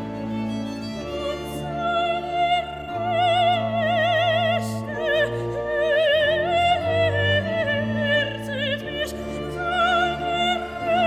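Baroque vocal music played on period instruments: a high solo voice sings long notes with wide vibrato over strings and a steady, slowly moving bass line.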